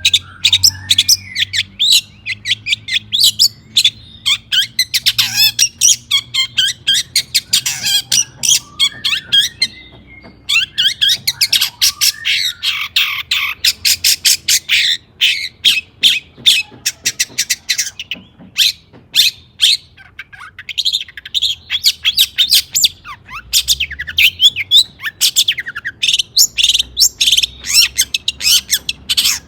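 Long-tailed shrike (cendet) singing continuously: a rapid, high-pitched stream of short sharp notes with brief lulls about a third and two thirds of the way through.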